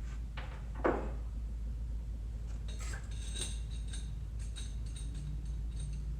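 Metal hand tools and engine parts clinking and clattering during a rotary engine teardown, with one louder clatter about a second in and light clinks later, over a steady low hum.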